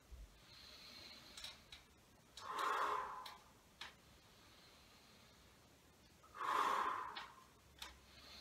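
A man's paced exercise breathing: two audible breaths blown out through the mouth, about four seconds apart, each as the arms are released, with fainter breaths in between.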